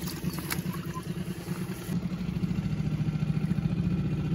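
Boat motor idling steadily, a low, even engine note that picks up slightly about two seconds in.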